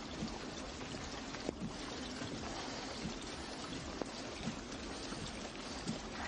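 Steady, even hiss with a few faint ticks and taps, heard through a police car's dashcam microphone.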